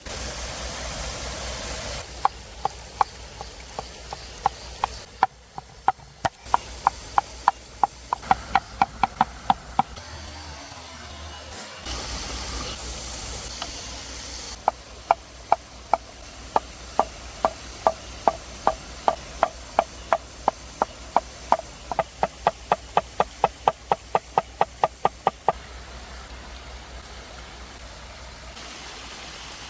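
Knife chopping steadily on a wooden cutting board, about two or three strokes a second, in two long runs with a pause in between.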